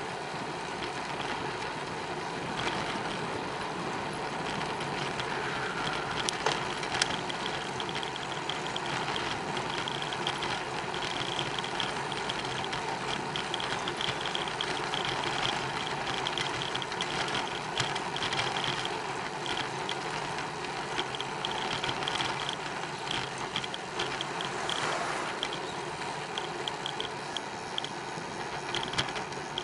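Steady rolling and rattling noise of a bicycle being ridden, with a high ticking that comes and goes and a few sharp clicks.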